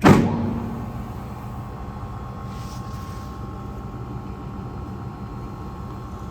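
Rapid plastics granulator (grinder) running: a sharp, loud clunk at the start that dies away over about a second, then a steady machine hum with a thin high whine.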